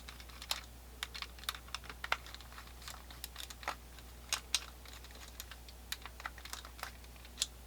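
Light, irregular clicks and ticks of a screwdriver and small metal parts being handled while an 1860 Colt Army percussion revolver is taken apart, its back-strap screws being backed out.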